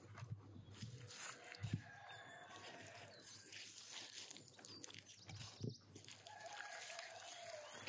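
Hands squishing and rubbing a wet spice paste into the skin of a raw whole turkey on a wooden board, with small knocks of the bird against the board. Two drawn-out animal calls and small birds chirping sound in the background.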